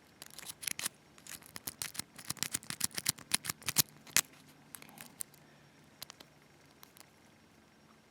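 Lock pick clicking against the pins inside a Sterling 6-pin oval cylinder while the pins are worked under tension. The first four seconds hold a quick run of sharp clicks, followed by a few scattered ones.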